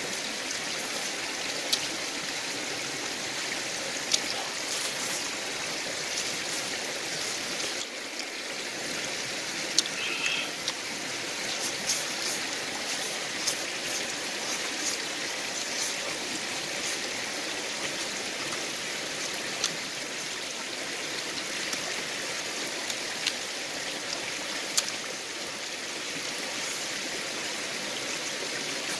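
Steady rushing and trickling of a nearby stream, with a dozen or so brief sharp clicks scattered through it.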